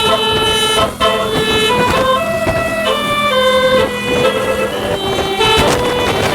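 Basuri 36-note telolet air horn on a medium bus playing a quick melody, its notes jumping to a new pitch every fraction of a second, over a steady low hum.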